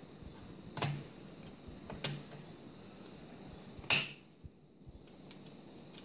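A laptop hard drive in its metal cage being shifted and adjusted in the plastic drive bay: three short clicks and scrapes over about three seconds, the last the loudest.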